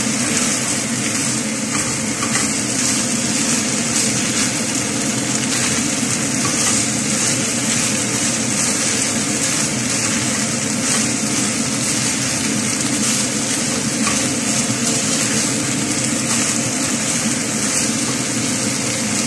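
Chicken and red onion rings sizzling in a frying pan as they are stirred, a steady hiss over a steady low hum.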